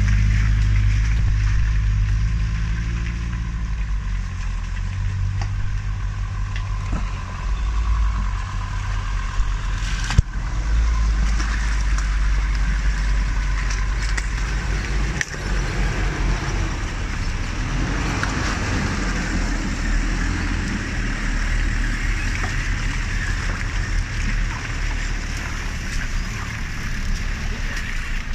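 4x4 off-road vehicle's engine running steadily while driving a rough track, with a single sharp knock about ten seconds in.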